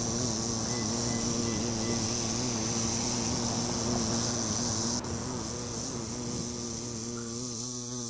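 Bumblebee buzzing close by as it forages on and flies around a sunflower, a steady hum with a slightly wavering pitch, over a steady high hiss. A brief click sounds about five seconds in.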